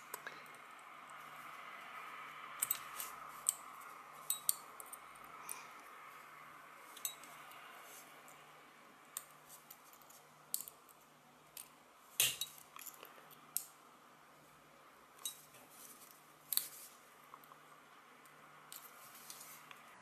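Needle-nose pliers gripping and bending the end of a thin metal hairclip into a small coil: light metallic clicks and ticks of the jaws on the wire, scattered a few seconds apart, the loudest about twelve seconds in.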